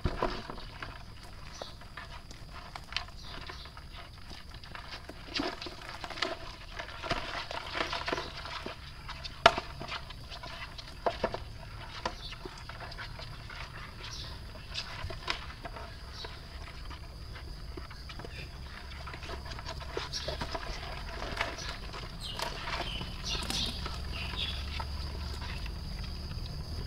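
Scattered knocks, clicks and rustles as a wire-framed mesh fish trap and its live catch of catfish, snakehead and crabs are shaken out and handled in a plastic tub.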